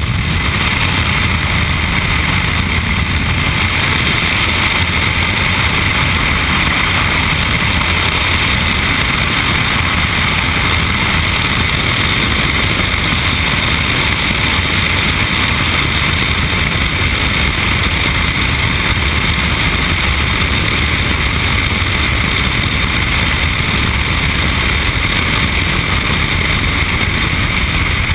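Steady drone of a propeller aircraft's engine mixed with loud rushing air through the open jump door, heard from inside the cabin.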